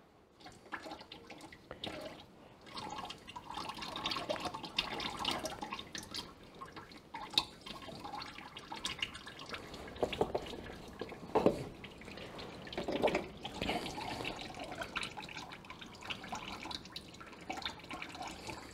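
Used engine oil dripping and trickling into a drain pan while the tractor's spin-on oil filter is unscrewed by hand. The drips fall irregularly, with a few louder ones around the middle.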